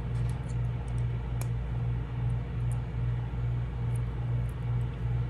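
A steady low hum, pulsing about twice a second, with a few faint small clicks as jewelry pliers tuck in the cut end of a wrapped wire.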